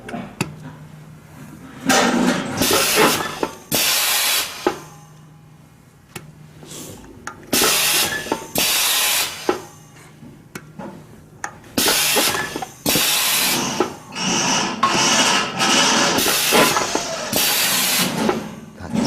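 Vegetable stick slicer cutting sweet potatoes into sticks: about a dozen loud cutting strokes, each a second or less and unevenly spaced, over the machine's steady low hum.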